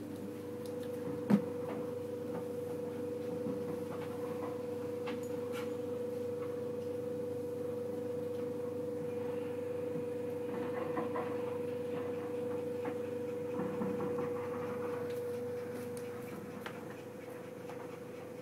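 A steady hum, with one sharp click about a second in and scattered faint clicks and soft rustles.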